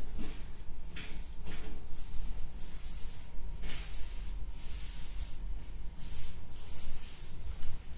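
A series of irregular short rustling, hissing strokes, a dozen or so, over a steady low rumble.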